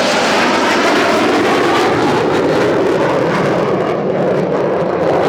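F/A-18 Hornet's twin jet engines roaring loudly and steadily as the fighter flies past at an air show display.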